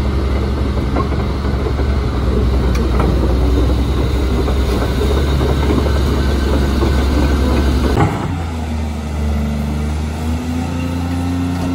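Caterpillar 330D2 excavator's diesel engine running close by, a loud, steady low drone. About eight seconds in the sound changes abruptly to a second excavator's engine working, a steadier, slightly higher hum.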